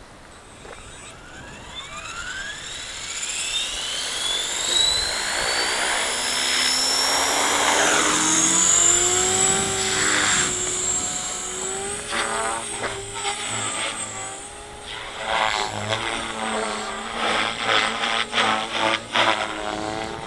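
OXY 4 electric RC helicopter with a Scorpion brushless motor spooling up, its whine rising in pitch over several seconds, then running at flight speed. Once it is airborne, the rotor buzz swells and fades repeatedly and wavers in pitch as it manoeuvres.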